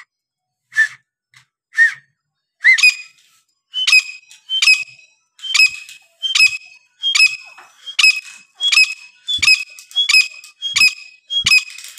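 Grey francolin calling: a few single rising notes, then a long run of loud, shrill, repeated calls, a little under one a second.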